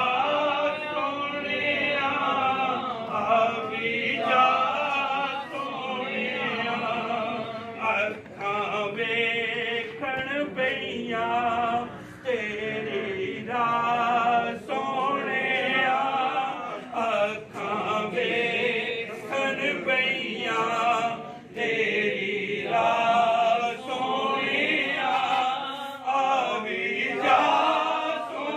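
Unaccompanied male voices singing a devotional chant in steady phrases.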